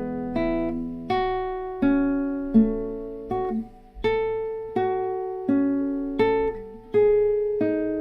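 Guitar played fingerstyle, slowly picking out arpeggiated chord shapes one note at a time. A new note comes about every 0.7 seconds, and each note rings over into the next.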